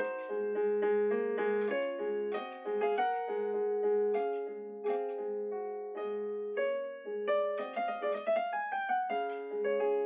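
Digital piano being played: a melody of single notes over a sustained low note, with a quick rising run of notes about three-quarters of the way through.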